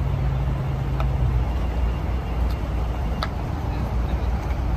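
Nissan 370Z's V6 running at low revs as the car creeps slowly past. A steady low hum in its note drops away about a second and a half in, leaving a low rumble.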